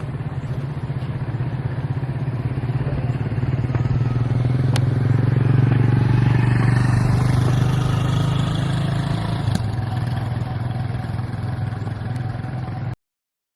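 An engine running steadily with a low hum that swells a little midway, then cuts off abruptly near the end.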